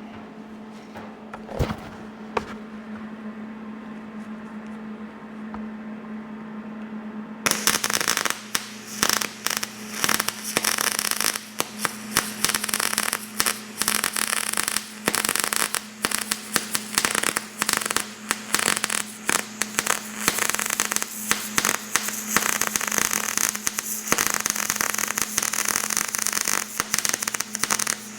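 A steady hum, then about seven seconds in an electric welding arc starts crackling loudly and keeps going with brief breaks, as steel suspension brackets are welded together.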